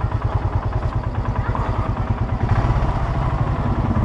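Royal Enfield motorcycle engine running with an even, rapid low pulse, a little louder from about two and a half seconds in.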